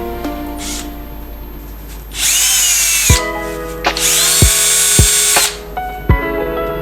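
A small electric power tool, such as a drill, runs in two short bursts, about a second and about a second and a half long, with a whining motor whose pitch sags and recovers. Background music plays throughout.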